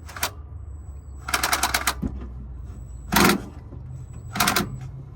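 Impact wrench hammering in short bursts on a bolt near the power steering pump. There are four bursts, the longest about a second in and lasting over half a second.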